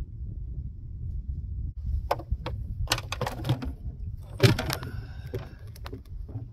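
A run of sharp knocks and clatter against a canoe's hull as the canoe is got moving, the loudest about four and a half seconds in, over a steady low rumble.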